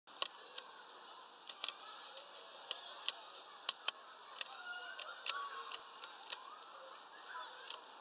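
Sharp, irregular taps and clicks, a few a second, from small birds pecking at a suet ball in a mesh net and shifting on the feeder perch, with faint bird chirps underneath.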